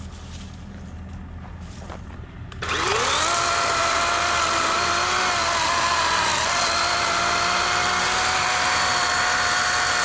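DeWalt 40V cordless electric chainsaw triggered about two and a half seconds in: its motor whines up to speed and then runs at a steady high pitch.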